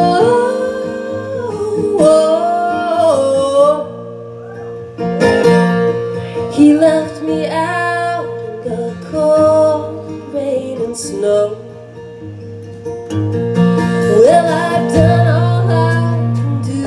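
Live band music: a woman singing over her acoustic guitar, with electric bass underneath.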